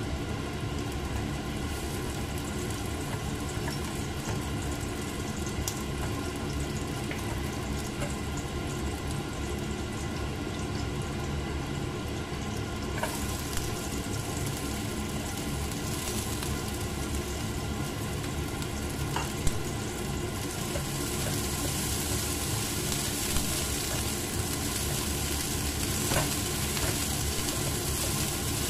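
Garlic sizzling in hot oil in a nonstick pan, a steady frying hiss over a low hum. About 13 seconds in, sliced onions go in and the sizzle turns louder and hissier. A few light clicks follow, and a spatula stirs the pan near the end.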